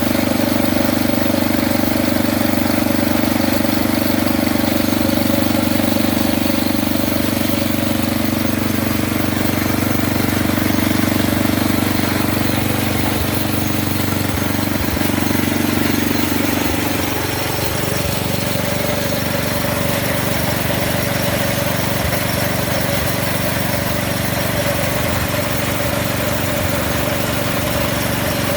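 Briggs & Stratton 4 hp single-cylinder four-stroke engine on a 1962 Lawnmaster snow thrower, running steadily just after starting. A little past halfway its speed drops slightly, and it settles into an even run, running like a top on a new spark plug.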